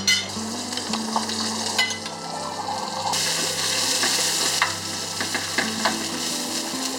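Zucchini slices and chopped onion sizzling in olive oil in a frying pan while a wooden spoon stirs them, with sharp clicks as the spoon knocks the pan. The sizzle grows louder for about a second and a half, around three seconds in.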